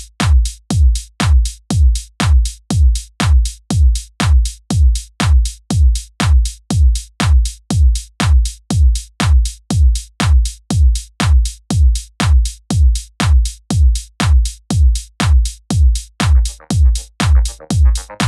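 Electronic dance music with a steady kick-drum beat, about two beats a second; a busier synth part joins near the end.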